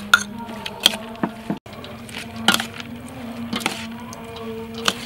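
Metal spoon clinking and scraping against a stainless steel mixing bowl as a shredded vegetable salad is tossed, with sharp clicks every second or so over a steady low hum.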